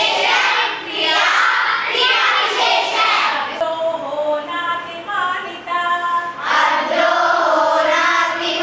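A group of schoolgirls singing together in unison, holding steady notes, from about three and a half seconds in. Before that a young woman's voice speaks.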